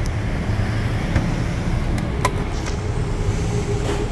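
Steady low rumble of road traffic, with a few light clicks and a steady hum that comes in about halfway through.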